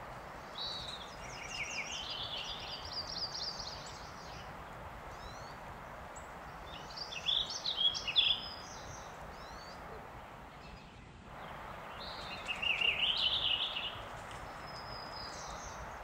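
Songbirds singing in several phrases of quick, high chattering notes a few seconds apart, over a steady outdoor background hiss.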